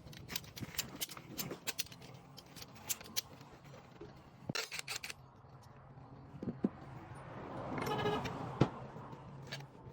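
Scattered clicks and light metallic rattles of hand tools and parts being handled during shock absorber work, with a quick cluster of clicks about four and a half seconds in and a brief swelling noise near the end.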